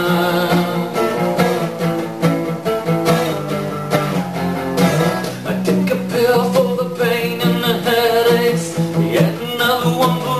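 Solo acoustic song: acoustic guitar strumming, with a sung melody with long held notes coming in about halfway through.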